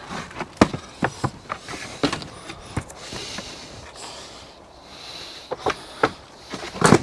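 Wooden polytunnel door being lifted off its frame and handled: a run of sharp wooden knocks and clatters, a pause, then more knocks, the loudest near the end.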